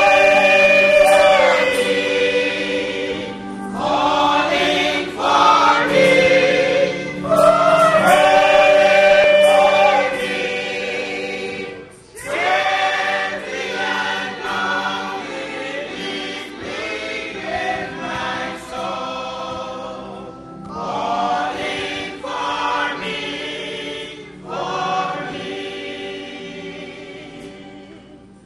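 Church choir singing in phrases of long held notes, fading away near the end.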